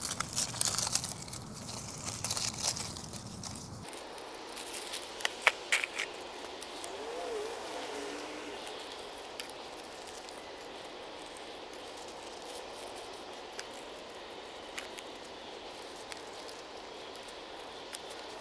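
Gloved hands sifting through gravel mulch and picking out dry leaves: stones clicking and leaves crackling. The clicks come thick in the first six seconds, loudest about five seconds in, then thin out to a few scattered ones over a faint steady hiss.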